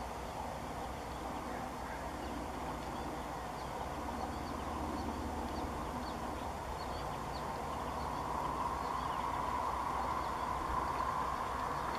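Steady outdoor background noise: a low rumble with a hum that grows louder in the second half, and faint, short, high bird chirps scattered through it.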